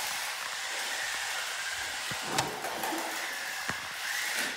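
Toy RC stunt car's electric drive motors whirring steadily, with a couple of sharp knocks.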